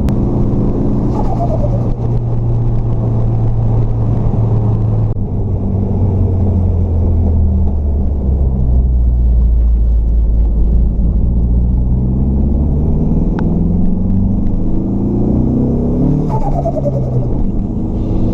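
Dodge Neon SRT-4's big-turbo 2.4-litre four-cylinder on a low-boost pull. The engine runs steadily, then climbs in revs over several seconds in the second half. When the throttle closes, a falling turbo whine follows, and a similar falling whine comes about a second in.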